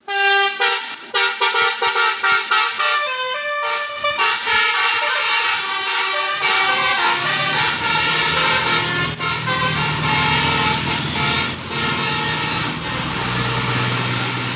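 Bus telolet horn (a Basuri multi-tone horn) playing a tune of short notes that step quickly from one pitch to the next. From about seven seconds in, the bus's engine is heard running underneath.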